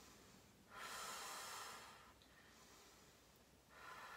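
A woman's Ujjayi yoga breathing, audible through the throat. There is one breath about a second in lasting about a second, and another begins near the end.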